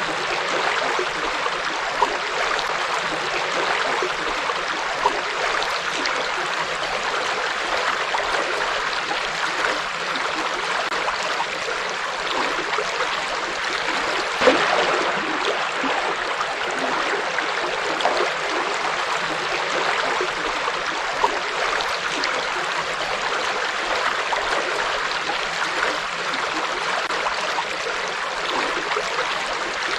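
Forest river flowing: a steady rush of running water, with a few brief louder splashes about 2, 5, 14 and 21 seconds in.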